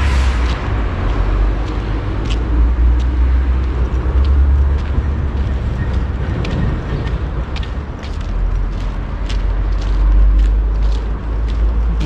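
Wind buffeting an outdoor microphone: a heavy low rumble that swells and eases, with short high ticks coming about every half second over it.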